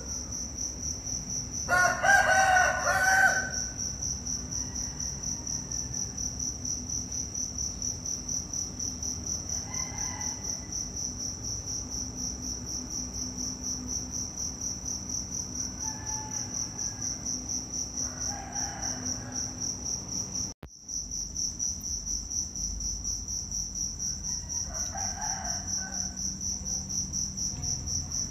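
Insects chirping, a steady high-pitched pulsing trill that keeps going throughout. A louder animal call with a clear pitch comes about two seconds in, and fainter calls of the same kind follow now and then.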